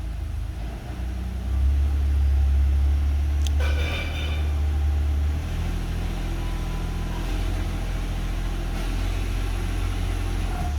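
Ford F-150 EcoBoost 3.5-litre twin-turbo V6 held in reverse and given light throttle to put it under load. It is a load test for a cylinder 2 misfire. The engine note rises for a few seconds, then drops back to a steady lower run about halfway through.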